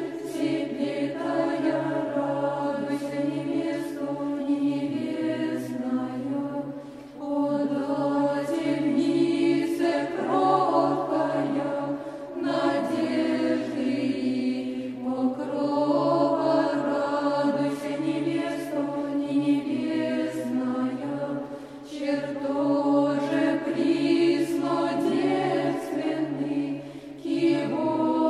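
Male choir singing Orthodox Byzantine chant: a sung melody over a steady held low drone note (the ison), in long phrases with short pauses for breath between them.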